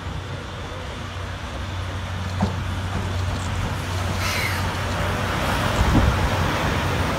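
C58 363 steam locomotive rolling slowly into a station, its running noise growing steadily louder as it draws near, with a short burst of hiss about four seconds in.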